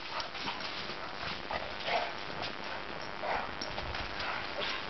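A boxer and a German shorthaired pointer play-fighting, with several short barks, about one every second or so in the second half.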